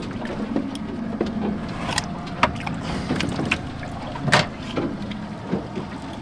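Boat on the water with its motor running as a steady low hum, and several sharp knocks and clatters on the boat, the loudest about four seconds in.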